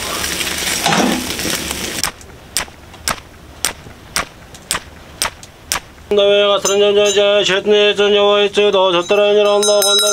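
About two seconds of rushing noise as fire flares up in a stove, then a run of about eight sharp clicks, roughly two a second, then a man's voice holding a steady pitch over a low drone.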